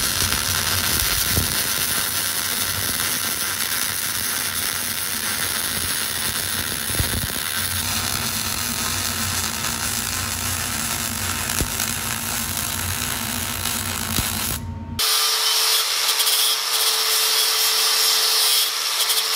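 MIG welding arc crackling and sputtering steadily as a bead is laid on steel, for about fifteen seconds. It then cuts to an angle grinder with a flap disc running with a steady whine as it grinds down the welds.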